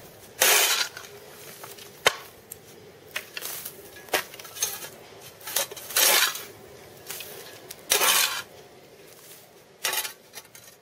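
Shovel scraping and knocking on asphalt covered in wood chips: about a dozen irregular strokes, some longer scrapes and some short, sharp metallic clinks.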